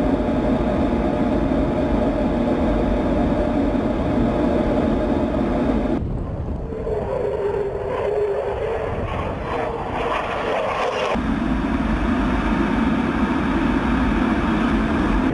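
F-16 fighter jet's engine running loud and steady, in spliced-together stretches that change abruptly about six and eleven seconds in; in the middle stretch its tone shifts up and down as the jet passes.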